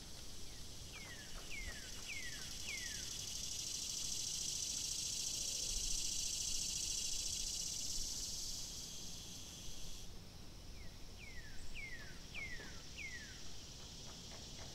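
Outdoor nature ambience: a steady high insect buzz that swells and then drops off sharply about two-thirds of the way in. Two runs of four quick falling chirps come near the start and again near the end.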